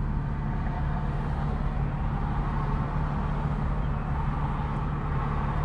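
BMW M4's S55 twin-turbo inline-six idling steadily, heard from inside the cabin: an even low drone with no rise in revs.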